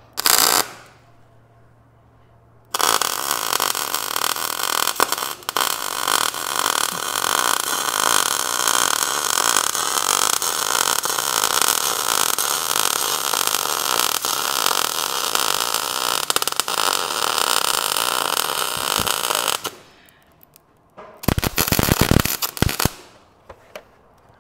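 MIG welder arc crackling and sputtering as a bead is laid on a steel radiator bracket: a brief tack at the start, a long continuous weld of about seventeen seconds, then a second short weld of about two seconds near the end.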